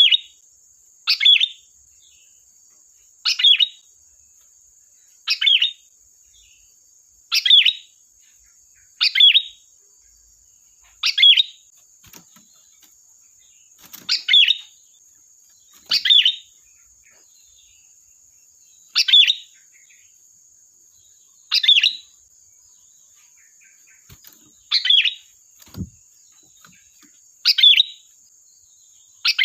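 Sooty-headed bulbul (kutilang) giving short, sharp calls, repeated roughly every two seconds, over a steady faint high-pitched hiss.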